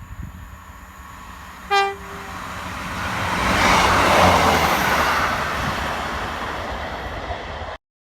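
A train sounds one short horn blast, then passes through the station, its running noise building to a peak and easing off before cutting off suddenly.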